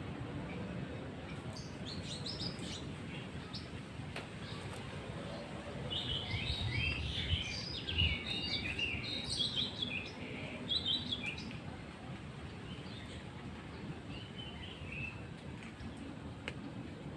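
White-rumped shama (murai batu) singing a run of quick, varied phrases, busiest in the middle and tailing off to a few faint notes, over a steady background hum.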